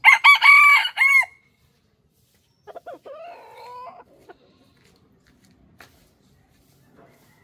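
Rooster crowing once, loud and high, over the first second and a half. A second, fainter and lower-pitched call follows about three seconds in.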